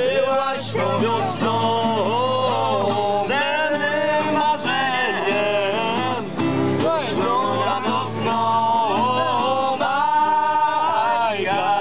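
Nylon-string classical guitar strummed to accompany young men singing a song together.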